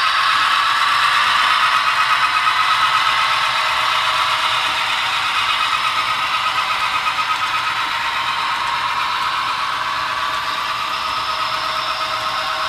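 Model railway passenger cars rolling over the track of a trestle, their wheels and couplers making a steady rattling clatter that fades slightly as the train moves on.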